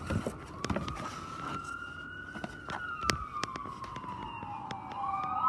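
Ambulance siren wailing: a slow rise in pitch, a long slow fall, then a quick rise again near the end. A few light clicks and taps sound over it.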